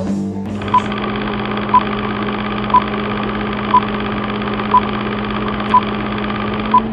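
Film-countdown sound effect: a steady, rattling projector-style whir with a short high beep once every second, seven beeps in all, as the countdown numbers tick down.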